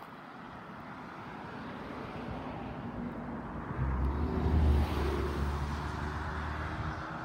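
A vehicle driving past, its engine and tyre noise growing louder to a peak about four to five seconds in, then fading away.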